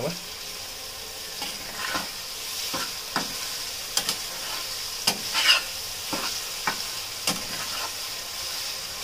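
Metal spatula scraping and clinking against a pan as dried Bombay duck is stirred into an onion-tomato masala, with irregular strokes every half second or so. Under it the masala sizzles steadily as it fries.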